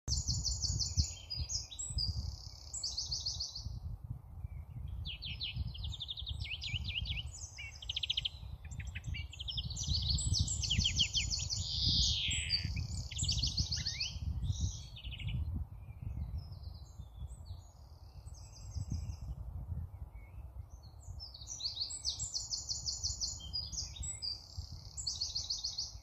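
Fledgling blue tits calling: bursts of high, fast trilled notes, typical of young birds begging to be fed. The calls thin out in the middle and pick up again near the end, over a low rumble.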